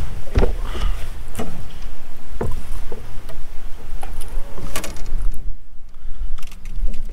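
Waves slapping a small fishing boat's hull while wind rumbles on the microphone, with several sharp knocks or splashes about a second apart in the first half.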